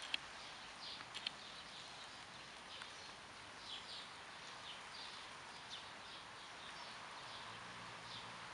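Faint outdoor background: an even hiss with short high chirps from small birds repeating every half second to a second, and a couple of sharp clicks about a second in.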